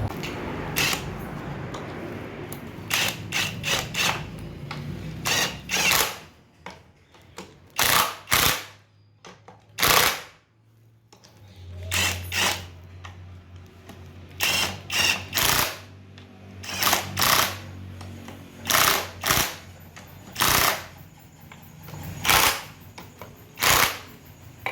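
Power tool run in repeated short bursts, about twenty in all, singly or in quick groups with pauses between.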